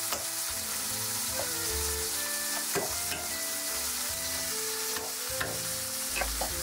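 Duck breasts searing in a hot pan, sizzling steadily, with several sharp knife taps and clicks on a bamboo cutting board.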